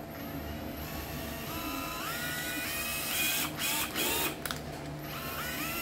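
Small motor of a 7.2 V cordless drill-driver run in a quick series of short trigger pulls, each a whine that rises in pitch as it spins up and then stops, with light clicks in between. It runs smoothly and quietly, a sign of a motor in good order.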